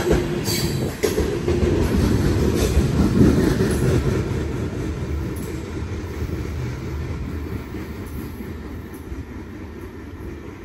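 Freight cars rolling past close by, a low rumble with a few sharp knocks from the wheels. About halfway through, the rumble fades steadily as the train moves away.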